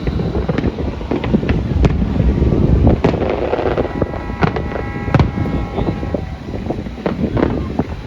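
Fireworks going off: sharp bangs and cracks several times over a continuous low rumble. From about four to six seconds in, a steady chord of tones sounds alongside.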